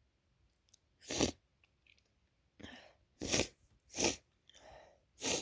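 A woman sneezing four times in a row: one sneeze about a second in, then three more close together in the second half. Short breathy intakes come between the later sneezes.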